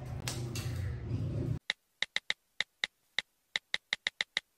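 Room tone with a low hum, then from about a second and a half in, a run of about fourteen short, sharp clicks at uneven spacing: the click sound effect of an animated subscribe end card writing out its text.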